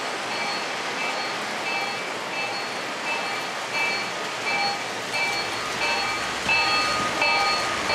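Electronic bell of a Williams EMD GP38 model locomotive ringing at about two strikes a second, over the steady rush of the model train running on the track as it approaches, growing a little louder in the second half.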